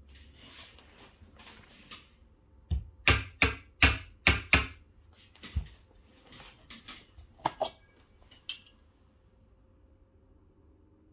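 Rustle of ground coffee in a metal portafilter, then the portafilter knocked against the countertop about six times in quick succession to settle the grounds, followed by a few lighter metal clicks and scrapes.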